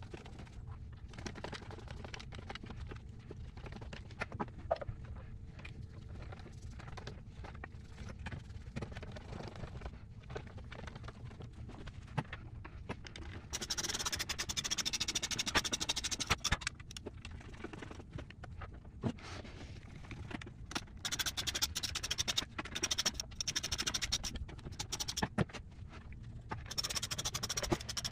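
Hand ratcheting screwdriver driving screws into cross dowels through a plywood plate, with scattered light clicks and knocks of parts being handled. From about halfway there are several stretches of dense scratchy ratchet chatter.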